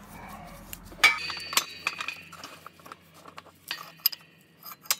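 Sharp metal-on-metal clinks and one loud, ringing clank about a second in, from the steel parts of a shop press setup: a homemade driver and a connecting rod as a new wrist pin bushing is pressed into the rod's small end.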